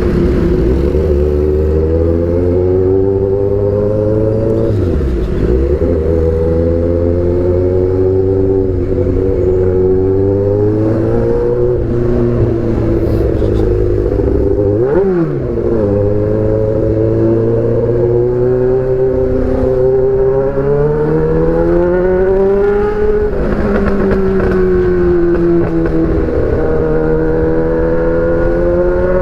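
Kawasaki Z800 inline-four running through an Austin Racing aftermarket exhaust while riding. The engine pitch climbs slowly, then drops back at each gear change, several times over, with a sharp dip about halfway through.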